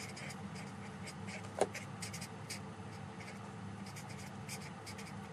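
Felt-tip marker writing on paper: a quick run of short scratching strokes as words are written, with one brief louder tick about a second and a half in. A steady low hum sits underneath.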